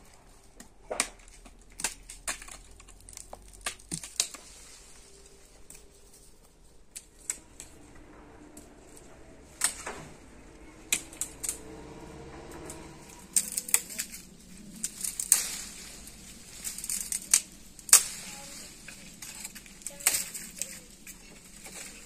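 Twigs and branches cracking and snapping and leaves rustling as a boy climbs through a tree and pulls at the branches. The cracks come irregularly and grow more frequent and louder in the second half.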